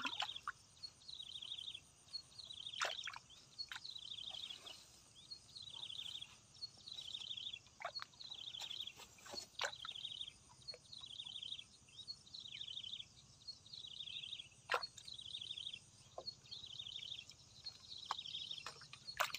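A small animal calling over and over: a short, high, buzzy trill repeated about once a second, with a few sharp ticks in between.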